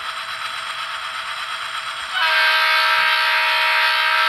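Sound decoder in an N-scale GP60 model locomotive playing an EMD 16-710G diesel idling through its small speaker. About two seconds in, a long multi-tone air horn blast starts over it.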